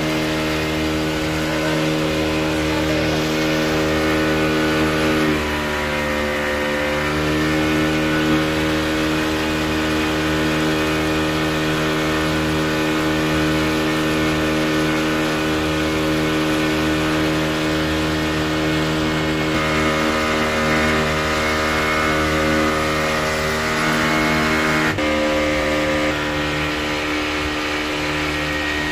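Boat engine running steadily at cruising speed, with its pitch dipping briefly and coming back up about six seconds in.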